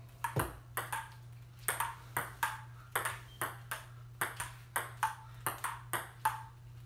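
Table tennis rally: the ball clicks off the table and the paddles in quick succession, about three to four hits a second, each with a short, bright ping.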